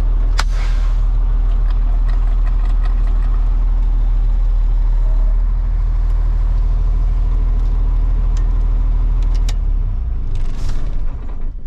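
Freightliner semi truck's diesel engine idling, heard from inside the cab, then shut off about ten seconds in so that its running dies away. A short hiss comes about half a second in, and another just before the engine stops.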